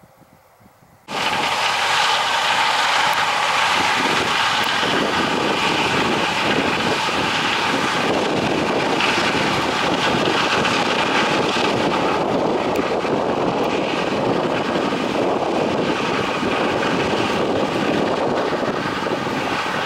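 Claas Lexion 750 combine harvester running steadily while harvesting corn: a loud, even machine rush with a steady whine, starting abruptly about a second in.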